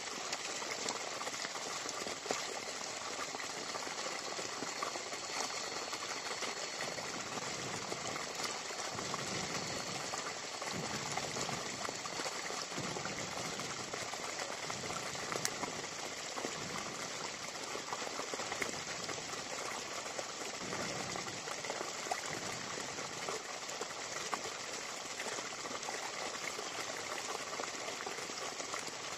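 Small wood fire steadily hissing and crackling with many fine pops as moist pieces of banana core roast over it.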